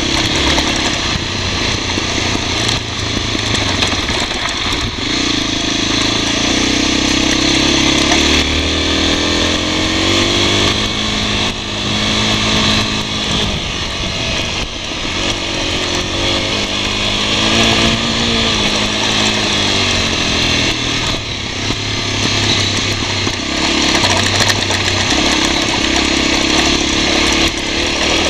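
Honda NX250's single-cylinder four-stroke engine running under way on a dirt trail, its note rising and falling repeatedly with throttle and gear changes, over a steady rush of wind and tyre noise.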